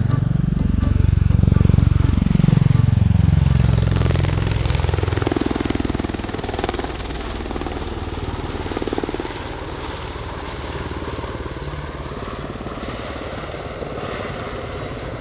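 MV-22 Osprey tiltrotor passing slowly with its nacelles tilted up, giving the deep, rhythmic thump of its two large proprotors. It is loudest in the first few seconds, with the tone sweeping as it goes by, and then fades as it moves away.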